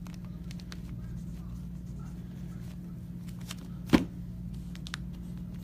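Trading cards and packaging being handled, with scattered light clicks and taps and one sharp knock about four seconds in, over a steady low hum.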